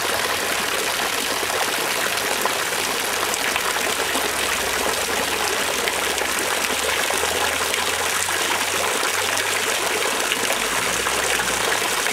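Thin jets of water falling from the top of a stone fountain column and splashing steadily into the water of its basin.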